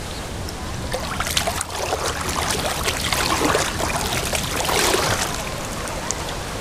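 Seawater splashing and sloshing as a gutted fish is swished and rinsed by hand in shallow water at the shore, starting about a second in and easing off near the end, over a steady wash of surf.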